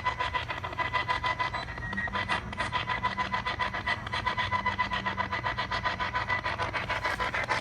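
Rapid, even pulsing static, about nine bursts a second, over a steady high electronic tone.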